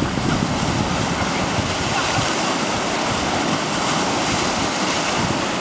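River whitewater rushing steadily around a raft surfing a standing wave.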